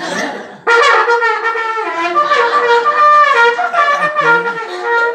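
Pless hunting horn (a small coiled brass horn) blown in a short call of several notes, starting about a second in. It is the forester's answering signal to his lord's horn, announcing that the forester is coming.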